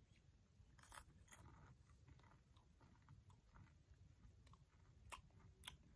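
Faint chewing of a sweet popcorn ball, with a few soft crunchy clicks about a second in and again near the end; otherwise near silence.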